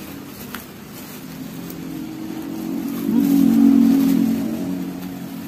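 A motor vehicle's engine passing by, growing louder to its peak about three and a half seconds in and then fading.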